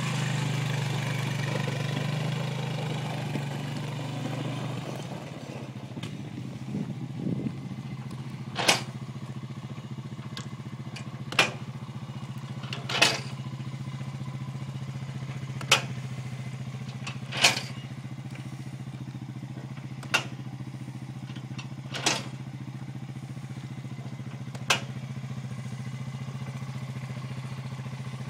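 Quad bike (ATV) engine idling steadily, a little louder for the first few seconds, with about eight sharp knocks every two to three seconds starting about nine seconds in.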